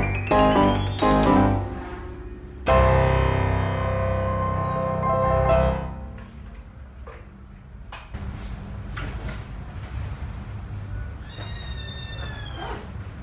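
Piano music: a quick rising run of notes, then a loud held chord that fades out about six seconds in. Near the end a kitten gives one long meow that falls slightly in pitch.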